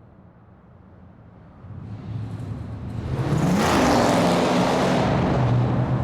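Muscle car engine running low, then accelerating: the engine note rises about three seconds in and is loudest around four seconds before easing a little.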